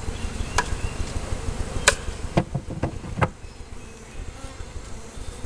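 Honeybees buzzing around a freshly installed hive, with about five sharp knocks spread over the first three and a half seconds.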